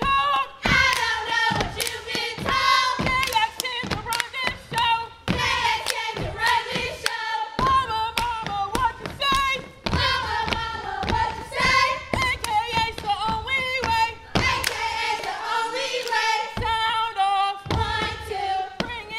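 Step team stepping in combat boots: sharp stomps and hand claps in a tight, fast rhythm, over women's voices singing in unison.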